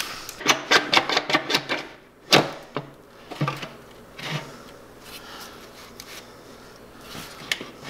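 A quick run of sharp clicks, about six a second for a second and a half. Then one loud knock and a few softer clunks as the BMW M50's plastic intake manifold is gripped and worked loose from the engine.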